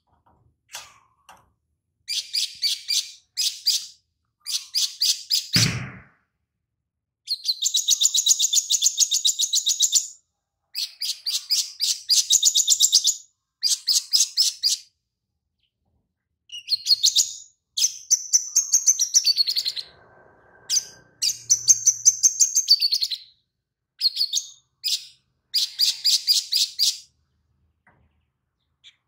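Male olive-backed sunbird singing: bursts of rapid, high chirping phrases with short pauses between them, its song filled in with lovebird-style chatter. One dull thump about six seconds in.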